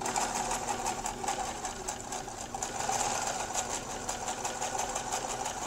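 Brother VX-1010 household sewing machine running at a steady speed, its needle stroking in a rapid even rhythm as it sews a zigzag stitch, then stopping at the end.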